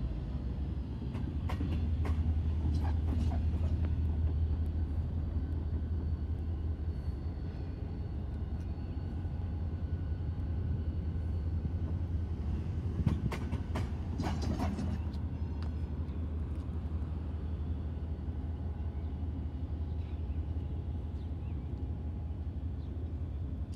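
Diesel locomotive running with a steady low drone as it moves slowly along the track. Sharp metallic clanks come twice, about two seconds in and again around thirteen to fifteen seconds, the second time with some high ringing.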